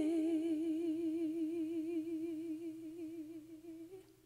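A solo singing voice holding the last note of a song with a steady vibrato, slowly fading out and ending about four seconds in.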